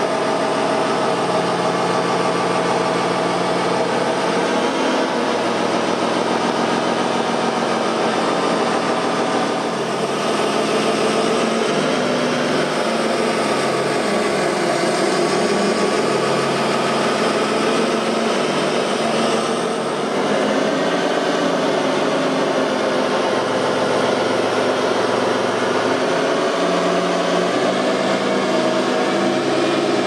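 Radio-controlled wheel loader running: a steady engine-like drone mixed with motor whine, its pitch shifting now and then with short rising and falling glides.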